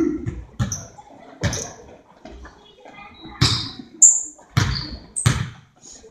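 Basketball being dribbled on a gym floor, the bounces coming about once a second and each echoing in the hall, with a short high squeak about four seconds in.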